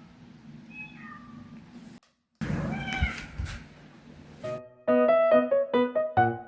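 Ragdoll kitten meowing several times, faint at first, then a louder meow after a brief cut to silence. About two-thirds of the way in, piano music starts and becomes the loudest sound.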